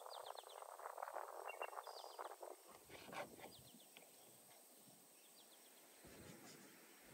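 A knife cutting into a whole raw chicken on a wooden board: a quick, crackly scraping of the blade through skin and flesh for the first two and a half seconds or so, then quieter. Small birds chirp in short runs of rapid notes in the background.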